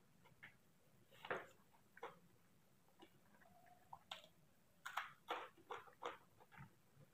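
Faint eating sounds by hand: short wet clicks and smacks of chewing and of fingers mixing rice on a plate, a dozen or so at irregular intervals, the loudest about a second in.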